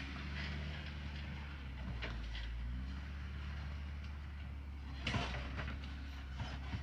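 Jeep Wrangler towing a small off-road trailer, driving slowly over rough ground: the engine's low, steady running, with a few knocks, the loudest about five seconds in.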